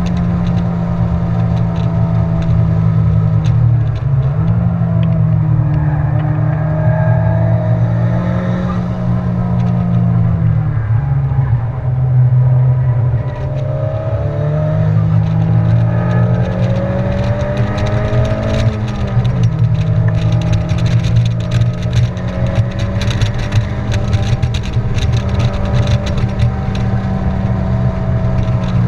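Honda Civic's engine heard from inside the cabin at speed on track, pulling hard with steady high revs that drop briefly about four times and climb slowly back as the car shifts and accelerates, over constant road and wind noise.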